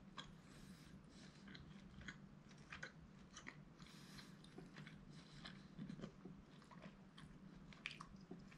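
Faint mouth sounds of a person chewing a bite of beef steak: soft, irregular wet clicks and smacks over a low steady hum.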